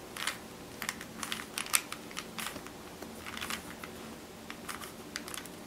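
Plastic Rubik's Cube layers being twisted by hand: quick runs of clicks with short pauses between them, as a move sequence is worked through.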